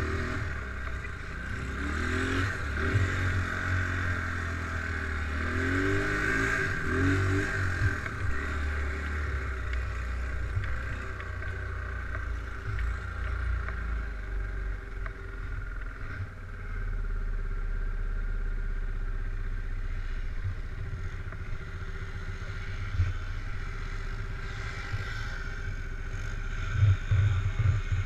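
ATV engine running and revving, its pitch rising and falling several times in the first eight seconds, then settling to a steadier drone.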